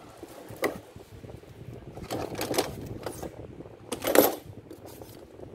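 Metal hand tools clanking against one another as ring-head plastic-pipe cutters are set down among other tools, a few separate clanks with the loudest about four seconds in.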